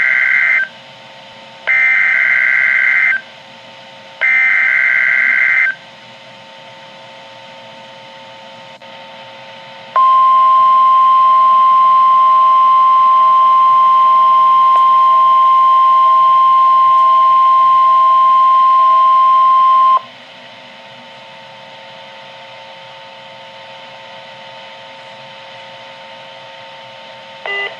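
NOAA Weather Radio SAME alert heard through a Midland WR-120 weather radio's speaker, marking a required weekly test. Three shrill bursts of warbling digital data tones, each about a second and a half, are followed by a faint steady hum, then the single-pitch warning alarm tone held steadily for ten seconds. The short end-of-message data bursts begin at the very end.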